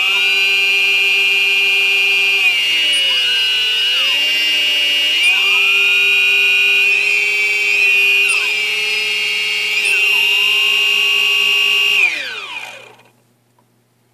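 Three of a quadcopter's four brushless motors spinning with a high, steady whine, their pitch sliding down and back up several times as their speed changes. About twelve seconds in they spin down with a falling whine. The fourth motor stays still, a fault the owner lays on the MegaPirate flight controller.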